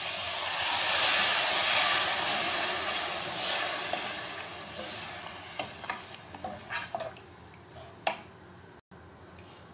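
Water poured into a hot pressure cooker of fried mutton and masala sets off a loud sizzle that hisses and slowly dies away over several seconds. A few scrapes and knocks of a wooden spoon stirring the pot come in the second half.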